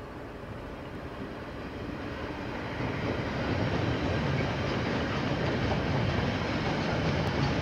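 KiwiRail diesel-hauled container freight train approaching and rolling past: a steady rumble of locomotive and wagons with a low hum, growing louder about three seconds in and then holding.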